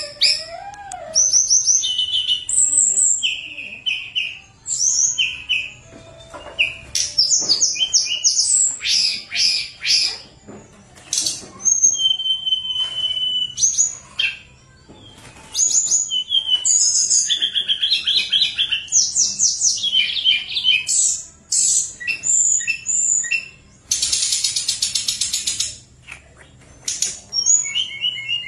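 Tledekan gunung singing a long, varied song of clear high whistled notes and fast trills, with a harsh buzzing phrase near the end.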